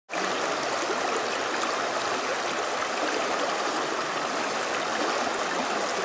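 Shallow creek flowing over riffles, a steady, even noise of running water.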